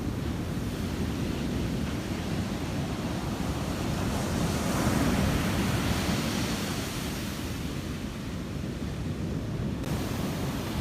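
Ocean surf: waves washing on a shore, with one wave swelling louder and breaking about halfway through, then easing off. Wind rumbles on the microphone underneath.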